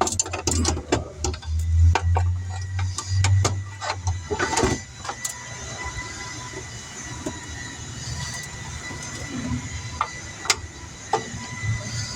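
Scattered clicks and knocks, like hands working wire connectors and tools, over a low rumble that stops about four and a half seconds in.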